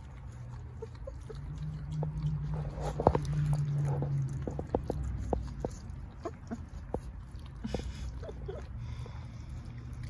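Four-week-old puppies gnawing raw meaty bones: a run of short, sharp clicks and crunches of small teeth on bone.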